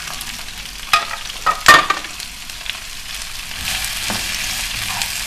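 Chopped vegetables frying in hot oil in a pot: a steady sizzle, with three sharp knocks in quick succession between one and two seconds in, and the sizzle growing a little louder near the end.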